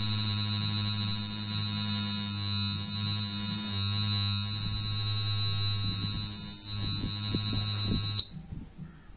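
Piezo buzzer on a water tank overflow alarm circuit board sounding its tank-full alarm, a steady high-pitched tone with a low buzz under it, set off by the sensing wires touching water. It cuts off suddenly about eight seconds in when the momentary push button is pressed to silence it.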